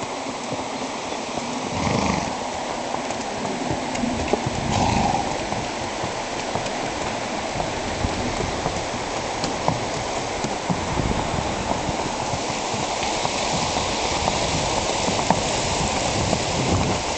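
Steady rush of a fast-flowing creek, with occasional thumps of a horse's hooves on the footbridge.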